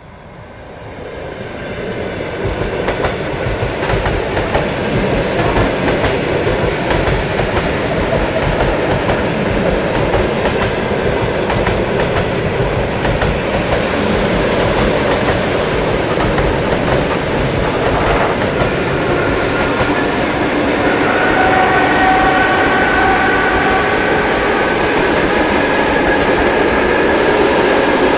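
ED4M electric multiple unit passing close by, its wheels clattering over the rail joints. The noise builds over the first few seconds and stays loud, and a steady whine of several pitches joins it in the last third.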